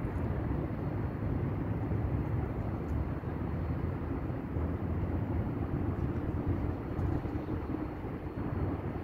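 Steady low rumble of distant city traffic, with no distinct events standing out.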